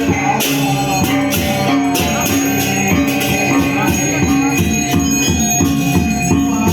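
Balinese gamelan music: bronze instruments hold a repeating ringing tone while cymbals clash on a steady beat, about two strokes a second.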